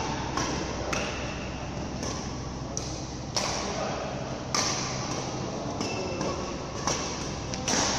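Badminton rally: rackets striking a shuttlecock about once a second, each hit sharp and echoing in a large hall. A steady low ventilation hum runs underneath.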